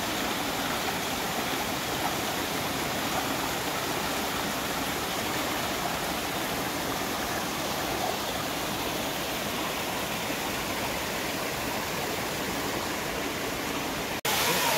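Steady rushing and splashing of a shallow mountain stream cascading over boulders. It breaks off for an instant near the end, and louder rushing water follows.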